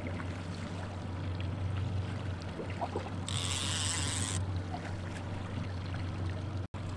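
Small fishing boat's motor running steadily at trolling speed, with water noise. A little over three seconds in comes about a second of high buzzing from a fishing reel playing a hooked fish.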